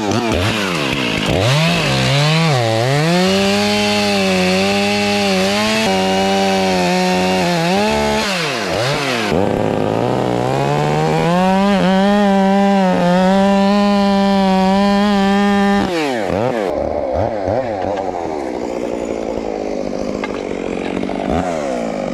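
Ported Makita chainsaw bucking a fir log, held at full throttle through two long cuts, its pitch sagging and recovering under load. Between the cuts and after the second, about two thirds of the way in, it drops back and revs unevenly.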